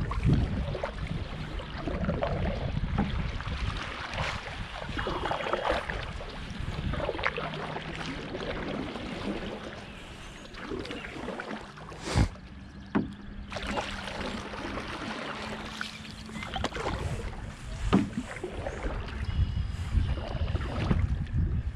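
Solo paddling of an Old Town Penobscot 164 canoe: paddle strokes splashing and dripping in the water, with a low wind rumble on the microphone that is strongest at the start and end. A few sharp knocks come a little past halfway and once more later.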